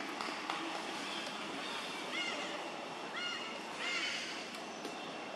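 A macaque giving short, high, rising-and-falling calls, three of them about a second apart, over a steady outdoor hiss.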